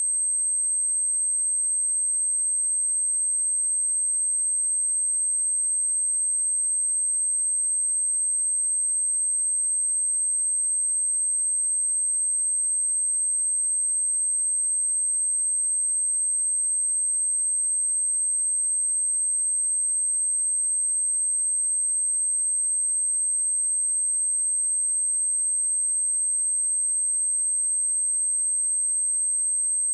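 A pure 8304 Hz sine-wave test tone, a single steady high-pitched whistle held unchanged at one level, of the kind played through a speaker to test it or to shake water and dust out of it.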